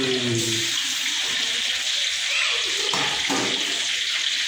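Hot oil sizzling steadily in a wok as seasoned soy slices fry, a continuous hiss.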